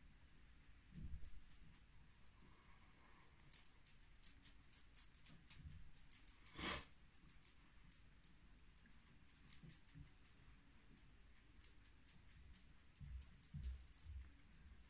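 Very faint, irregular soft clicks and pats of a makeup sponge dabbing concealer onto the skin, with one short louder sound about halfway through.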